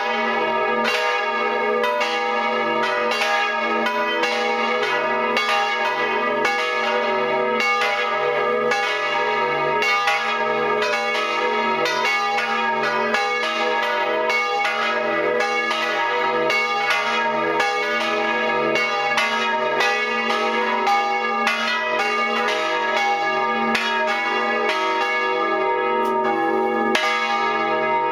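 Full peal of three swinging church bells tuned D#, G# and B (one cast in 1508, one in 1925 by Böhler, one in 1952 by Oberascher), heard up close in the belfry. The clappers strike in a steady overlapping succession, about two strikes a second, each stroke renewing a dense ringing hum.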